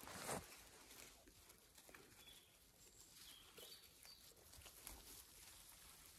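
Faint rustling and scratching of puppies scrambling over moss and leafy plants while tussling over a stick, with a louder rustle right at the start.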